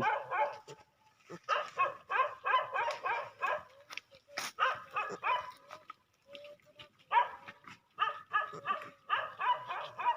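Animal calls: clusters of short, high-pitched calls, several a second, broken by brief pauses.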